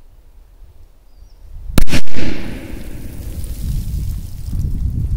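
A large 'pirate'-type firecracker exploding with a sharp double crack about two seconds in, loud enough to clip, followed by a low rumbling noise that fades slowly.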